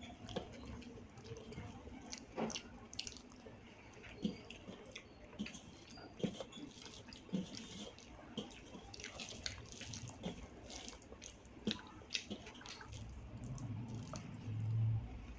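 Hand-eating sounds: fingers mixing rice with kadhi on a brass plate, with short irregular wet clicks and ticks of fingers in the food and against the metal, and eating mouth sounds. A low hum comes in near the end.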